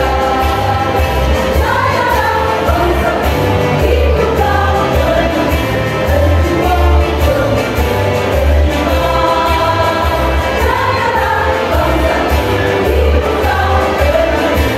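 Women's choir singing together over accompaniment with a deep bass line.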